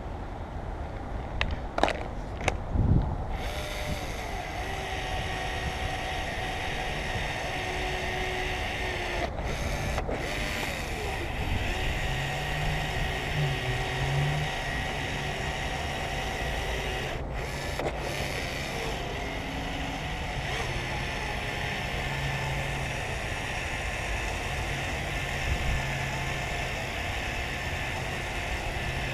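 A few sharp knocks near the start, then steady outdoor background noise with a faint low hum, like distant traffic.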